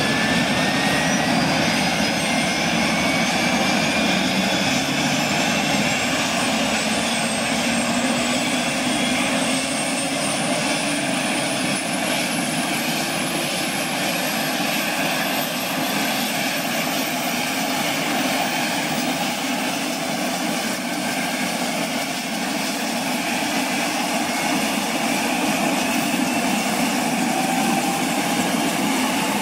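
Eurocopter AS350B2 AStar helicopter's Arriel turboshaft engine spooling up during start-up, a loud steady turbine whine rising slowly in pitch as the main rotor turns slowly and gathers speed.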